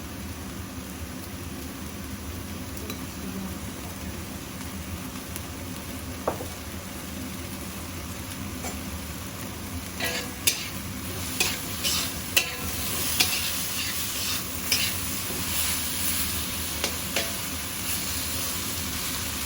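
Eggplant frying in oil in a pan, sizzling steadily while being stirred. From about ten seconds in come a series of sharp knocks and scrapes of the spatula against the pan, and the sizzle gets louder.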